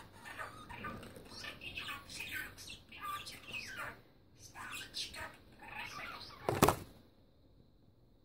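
Budgerigar chattering and warbling in quick, choppy phrases, which stop about seven seconds in. Just before they stop, a single sharp knock is the loudest sound.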